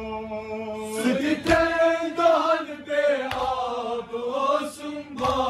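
Group of men chanting a Kashmiri noha in unison: a held note gives way to a slow, moving melodic line about a second in. Sharp hand-on-chest thumps of matam (ritual chest-beating) mark the beat about every two seconds.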